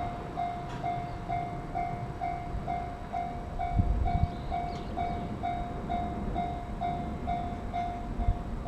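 Japanese level-crossing alarm bell ringing at a steady pace, about two and a half strikes a second, each ring dying away before the next. There are a few low thumps about four seconds in and again near the end.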